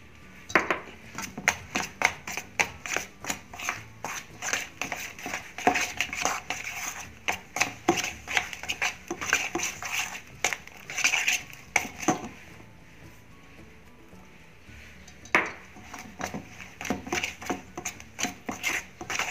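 Potato-and-flour dough being mixed and kneaded by hand in a steel bowl: a run of quick knocks and clicks against the bowl, about two or three a second, pausing for a couple of seconds past the middle.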